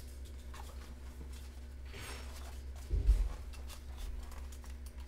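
Page of a hardcover picture book being turned: a soft paper rustle, then a dull thump of the book being handled about three seconds in, over a low steady hum.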